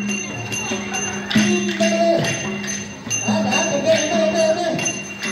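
Newar dance music for the monkey dance: metallic jingling strikes at about three a second over a steady low drone, with a wavering melody above it.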